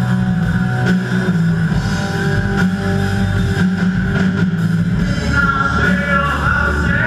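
Live rock band playing loudly through a PA: drum kit, heavy bass notes and electric guitars, with a higher melody line coming in about five seconds in.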